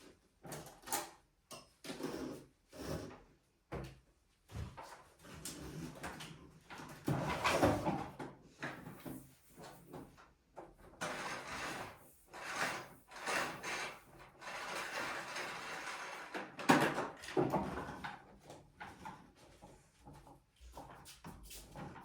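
Intermittent hand tidying sounds with no vacuum running: objects being handled, shifted and set down, with irregular short scuffs and knocks and one sharp knock late on.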